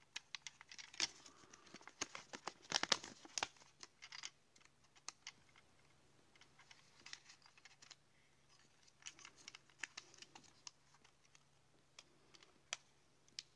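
Faint scattered clicks and rattles of a Mamiya RZ67 120 roll-film insert being handled and its spool wound by hand, as the film is coaxed onto the take-up spool. The clicks come thickest in the first few seconds and again a little past the middle.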